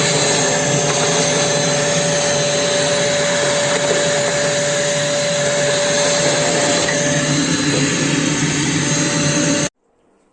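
Stayer BC 1200D ash vacuum cleaner running steadily, a loud motor rush with a steady whine over it, cutting off abruptly near the end.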